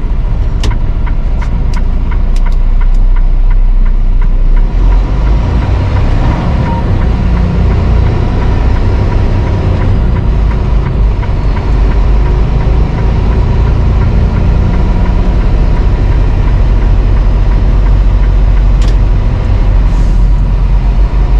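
Freightliner semi truck heard from inside the cab while driving: steady diesel engine and road noise. There is a run of light ticks in the first few seconds, and the noise grows fuller about five seconds in.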